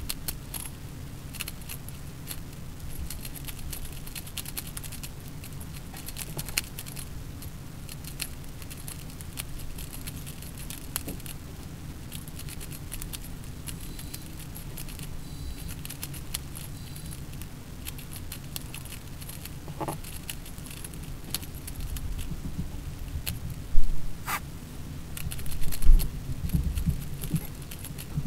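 Rapid, continuous clicking and rattling of a Rubik's cube's plastic layers being turned by hand, sped up four times. A few louder low thumps come near the end.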